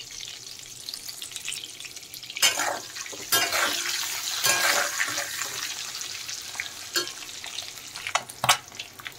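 Whole boiled eggs sizzling steadily in hot oil in a metal karai. From about two and a half seconds in, a metal spatula scrapes and knocks against the pan several times as the eggs are turned.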